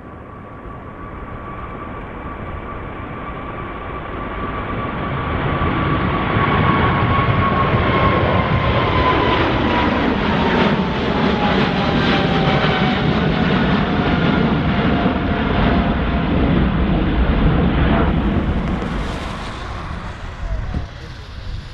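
Boeing 777-300ER's GE90-115B engines at takeoff power as the jet climbs out directly overhead: a steady roar that builds, stays loudest for several seconds as it passes over, then fades near the end. A high engine whine drops in pitch as the aircraft goes by.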